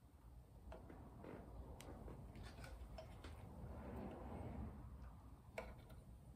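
Faint, scattered small metal clicks and a light scraping as a screw threaded into the dowel pin is worked to pull the pin out of a Porsche 911 engine's camshaft sprocket.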